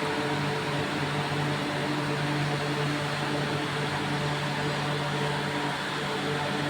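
Industrial machinery running steadily: a constant hum with a rushing, fan-like noise.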